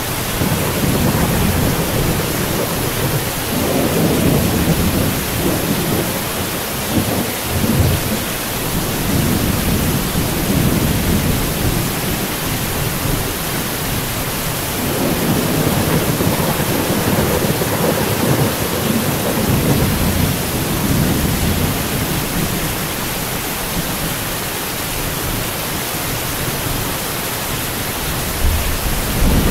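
Heavy rain falling steadily with low rolling thunder that swells and fades several times, loudest about four seconds in and again midway.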